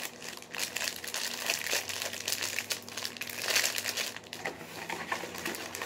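Plastic fruit snack pouches crinkling as they are handled and sorted, with a louder rustle about three and a half seconds in.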